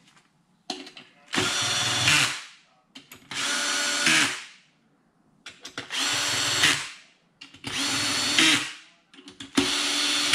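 Ryobi cordless drill-driver running in the screws that join the crankcase halves: five short runs of steady motor whine, each about a second long, one after another. Small clicks of the bit seating on each screw come between them.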